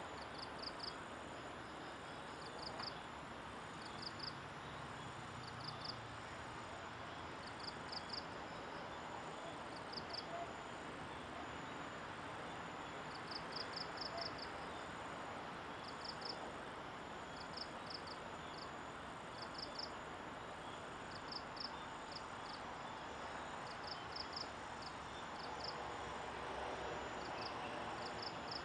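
Faint outdoor ambience: an insect chirps in short groups of two to five quick high pulses, repeating every second or two, over a steady hiss.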